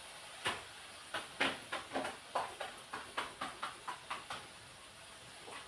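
Light, quick taps of a rolling pin on a round chapati board as dough is rolled out, about three to four a second, stopping about four and a half seconds in.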